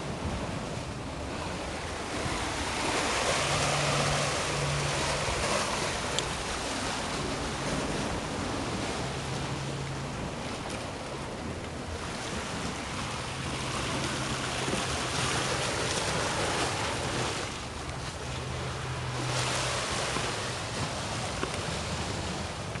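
Sea surf washing against a rocky shore, swelling louder twice and easing between, with a low hum that comes and goes underneath.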